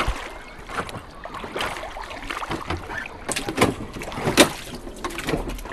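Floodwater splashing and sloshing at irregular moments.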